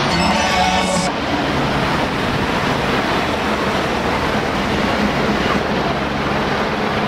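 Street traffic: a steady loud rush of cars driving past, with a low steady engine hum underneath.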